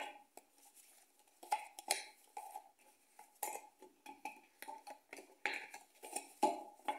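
Tarot cards being handled and laid down: a string of faint, irregular clicks and taps.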